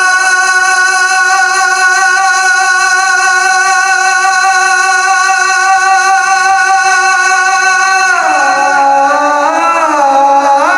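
Devotional naat music: one long held note at a steady pitch for about eight seconds, then sliding down in pitch and rising again near the end.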